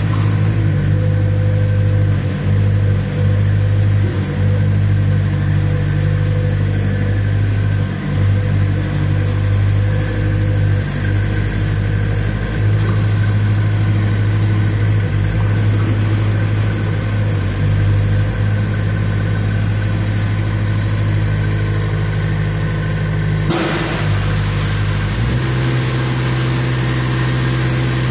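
Komatsu PC50 mini excavator's diesel engine running steadily. About 23 seconds in, a hiss rises over it, and shortly after, the engine note shifts to a slightly different, steady pitch.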